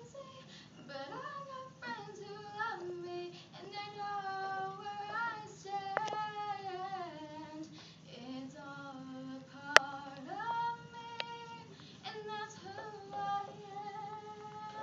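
A girl singing solo and unaccompanied, a single voice gliding between phrases and holding longer notes. A few sharp clicks cut through, the loudest about ten seconds in.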